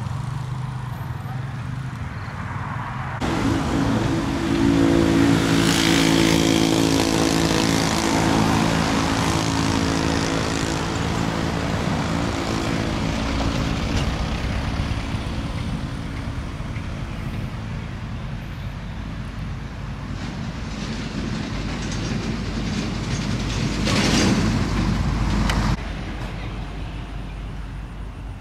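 Heavy truck diesel engine hauling an oversize load on a lowboy trailer. The engine note rises sharply about three seconds in and runs loud for several seconds before easing off. A short loud rush of noise near the end cuts off suddenly.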